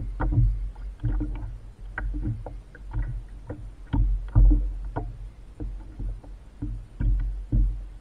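Water knocking and splashing against a kayak at sea, in irregular thumps about twice a second over a low rumble.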